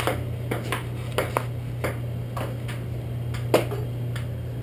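Table tennis rally: the ball clicks back and forth off the paddles and the table, a quick irregular string of sharp taps about every half second, with the sharpest hit about three and a half seconds in.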